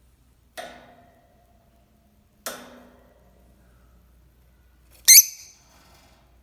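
Two hollow knocks with a short ringing tail, about two seconds apart, then a brief, loud, wavering high squeak from a parrot about five seconds in.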